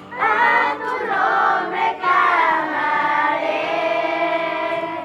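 A group of voices singing a Spanish-language worship song, one phrase and then a long held note.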